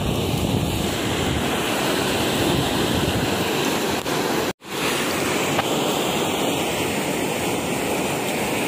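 Steady rushing noise of wind buffeting the microphone and canal water flowing past concrete. It cuts out for an instant about halfway through.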